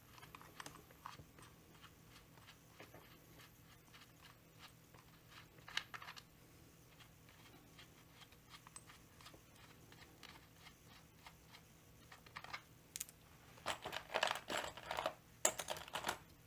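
Faint clicks and taps of plastic and metal chainsaw parts being handled and fitted on a Stihl 025 housing, with a busier run of sharp clicks and knocks near the end.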